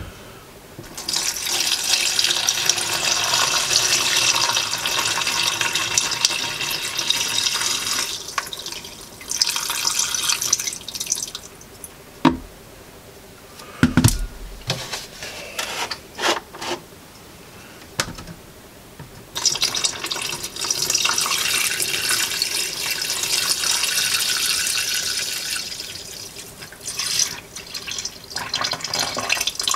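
Liquid pouring and splashing into a plastic bucket as oak-bark tannin solution is added: a long steady pour, a shorter one, a couple of knocks, then another long pour and a brief one near the end.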